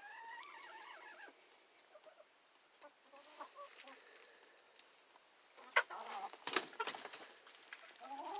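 Hens clucking, with calls in the first second and again more faintly a few seconds later. A cluster of sharp taps comes about six to seven seconds in and is the loudest part.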